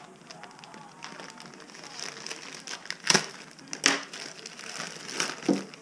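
A plastic mailer bag crinkling and rustling as it is cut open with a knife and handled, with a few sharp, loud crackles about three and four seconds in.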